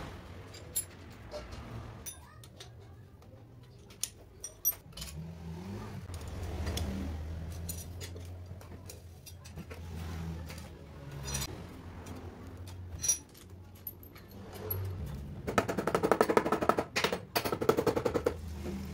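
Hand tools working on bolts of a motorcycle engine's side cover: scattered metal clicks and knocks, then, about three seconds before the end, a few seconds of loud, rapid rattling as a bolt is run out.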